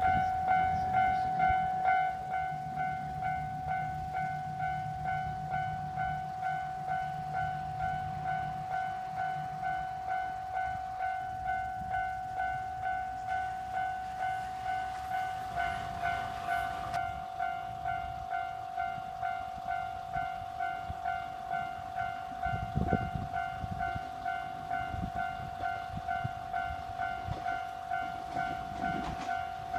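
Japanese railway level crossing's electronic warning bell starting suddenly and ringing in an even, rapid pulsing rhythm, signalling an approaching train. A low hum runs underneath from about two to ten seconds in, and there is a thump about 23 seconds in.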